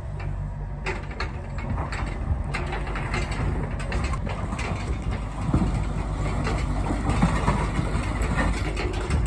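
Yanmar mini excavator's diesel engine running as it loads broken concrete into a tractor trailer, with irregular knocks and clatter of the rubble and bucket throughout.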